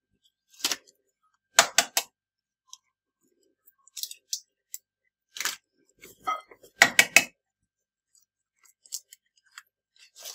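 Eggs being cracked against the rim of a glazed earthenware bowl: a string of sharp taps and shell cracks in small groups every second or two, the loudest cluster about seven seconds in.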